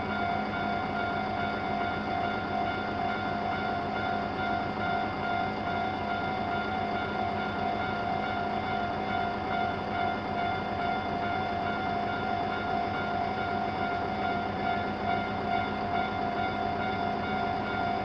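Japanese level-crossing warning bells ringing steadily, an electronic ding-ding bell with a second, slightly faster bell mixed in from the neighbouring crossing, so the two rhythms drift against each other.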